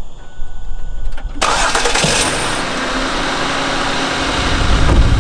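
An engine starting, with a sudden loud burst about a second and a half in, then running steadily and growing louder and deeper near the end.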